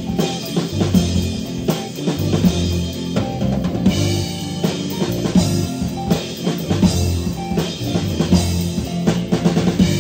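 A rock band playing live: electric guitars over a drum kit, with the kick and snare hitting steadily throughout, instrumental with no singing.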